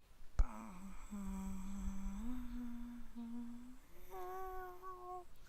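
A person humming long held notes that step upward in pitch, a vocal stand-in for the film's sound. A sharp click comes just before half a second in.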